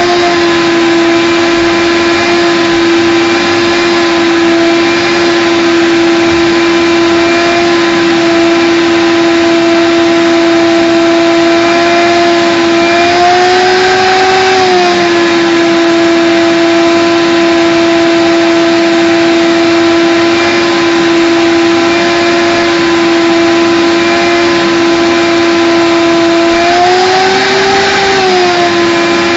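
Shop vac running with a steady whine; twice its pitch rises for a second or two, about halfway through and near the end.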